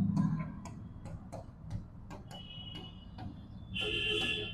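Steady, even ticking, about three ticks a second. In the second half a marker squeaks twice against the writing board as check boxes are drawn.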